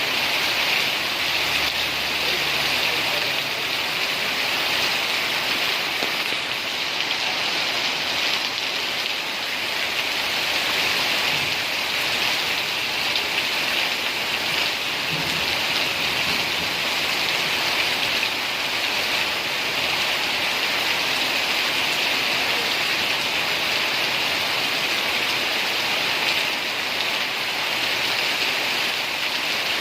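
Steady rain falling on surfaces: an even, unbroken hiss of heavy rainfall.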